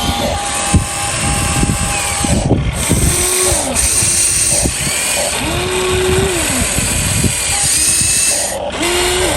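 Electric motor whine of radio-controlled construction models: several short whines that rise in pitch, hold, then drop away, over a steady mechanical hiss.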